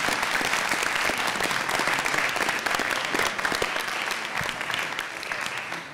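Audience applauding: many people clapping together, thinning out near the end.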